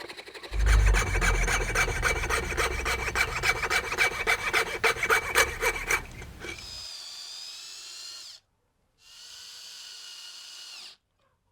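A power tool running and working on material, with a fast, even rattle and a low rumble, for about five seconds. It then gives way to a quieter, high-pitched hum whose pitch wavers, broken twice by sudden cuts to silence.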